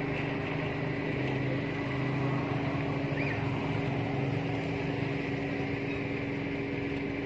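A steady motor hum, its pitch holding level throughout, with one brief high chirp about three seconds in.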